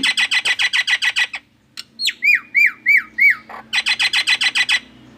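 Nias hill myna making an alarm-like call: a fast run of harsh repeated notes, about nine a second, then three hooked whistles, then a second fast run near the end.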